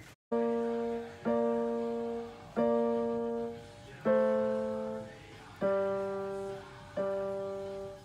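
Electronic keyboard played with a piano sound: six slow chords, one about every second and a half, each struck and left to fade.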